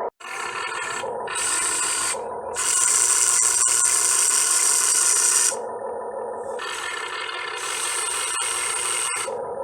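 Remote-control excavator's metal-geared electric motors running, a grinding whir that starts and stops three times as the machine moves.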